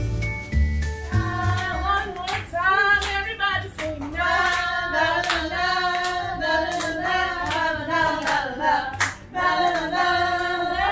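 A voice singing a lively tune to rhythmic hand claps.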